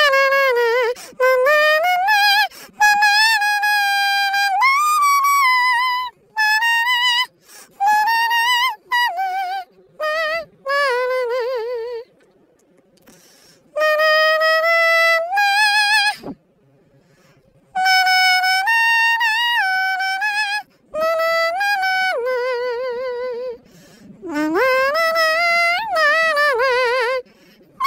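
A toy poodle singing a pop melody in high, howl-like notes that slide between pitches and sometimes waver, phrase by phrase with short breaks between.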